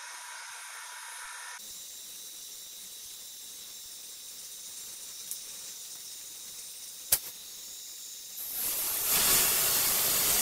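Faint steady hiss with a single sharp click about seven seconds in, then a loud rushing hiss that swells near the end: air let back into the evacuated bell jar.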